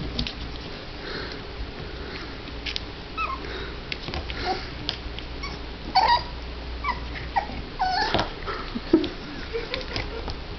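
A puppy whimpering in a series of short, high squeaks that bend in pitch, with scattered sharp clicks between them.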